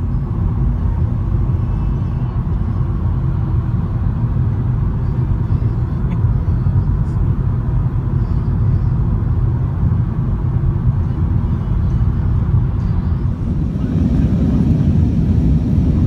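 Steady road and engine rumble heard inside a car cruising on a motorway. Near the end it changes to the steady, slightly louder drone of a jet airliner's cabin in flight.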